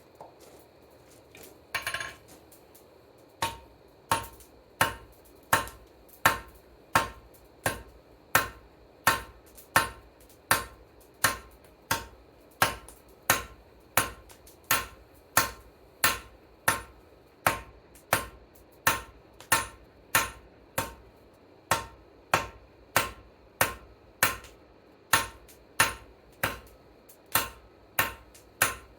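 Hand hammer striking hot steel on an anvil in a steady rhythm, about one and a half blows a second, each blow ringing. A single ringing strike comes about two seconds in, and the steady hammering starts a moment later.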